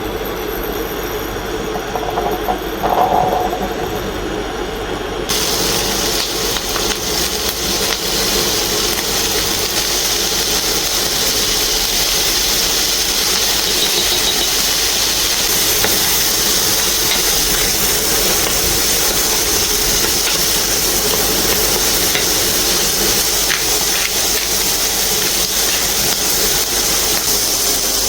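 Food sizzling in hot oil in a pan, a steady crackling hiss that turns suddenly louder and brighter about five seconds in.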